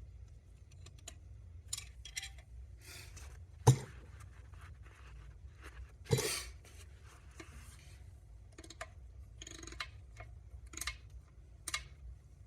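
Metal tools and gearbox parts being handled on a workbench: scattered clicks, light scrapes and rubbing, with two sharper knocks about four and six seconds in.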